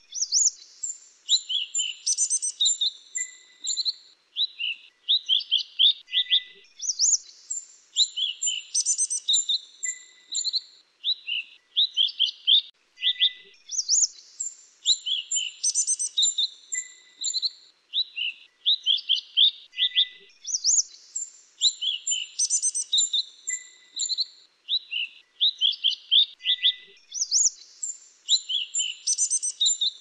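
Minivet song: bursts of quick, high, sweet chirps and trills, the same phrase coming round about every six to seven seconds, a looped training recording (masteran) for songbirds to copy.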